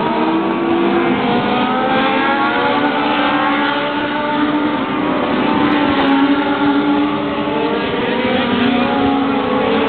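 Several race car engines running together on an oval track, their overlapping pitch rising and falling as the cars lap.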